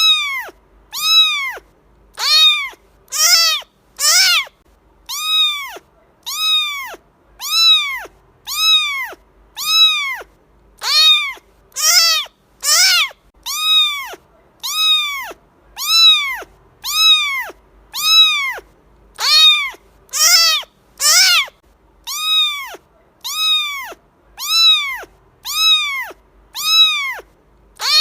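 A cat's high-pitched meow repeated over and over at a steady pace, about once a second. Each meow is short and near-identical, rising and then falling in pitch.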